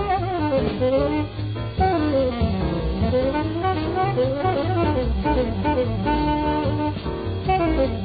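Up-tempo small-group jazz from a vintage recording: a tenor saxophone solo in quick rising and falling runs over walking bass and drums, with the dull, top-cut sound of an old record.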